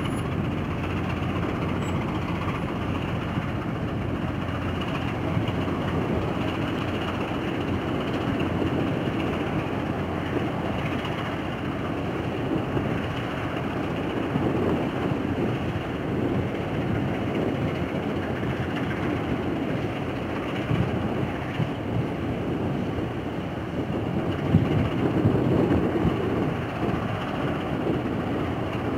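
Diesel engine of a purse-seine fishing vessel under way, heading out of harbour: a steady low rumble that swells slightly near the end.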